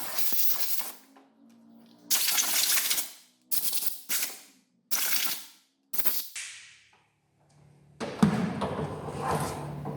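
Aerosol brake cleaner sprayed in six short hissing bursts to wash oil off and out of the ignition HT leads. Near the end a sharp knock comes, followed by a steady low hum.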